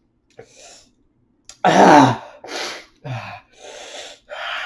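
A man coughing and clearing his throat in a string of short, harsh bursts, the loudest about two seconds in. Ghost pepper chip dust caught in his throat is burning it.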